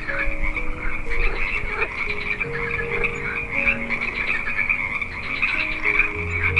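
A chorus of frogs calling: many rapid, overlapping pulsed calls, high-pitched and continuous.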